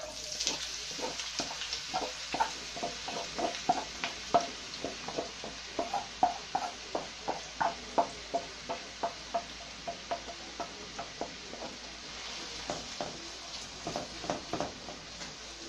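Chopped onions sizzling as they land in hot oil in a frying pan, with a wooden spatula scraping them out of a bowl and knocking and stirring against the pan in a string of short taps, about two or three a second.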